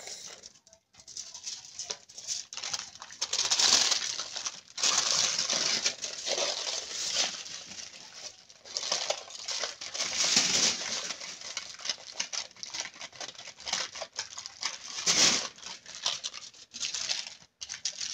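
Aluminium foil crinkling and rustling in irregular bursts as hands fold and crimp it closed into packets.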